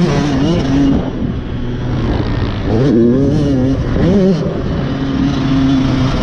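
Yamaha dirt bike engine revving as it is ridden hard around a motocross track, heard from the rider's seat. The engine note rises and falls with the throttle, with two quick climbs in pitch about 3 and 4 seconds in.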